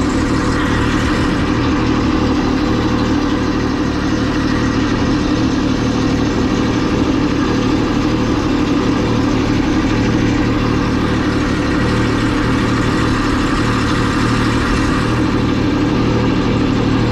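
Boat motor running steadily, with hull and water noise over it.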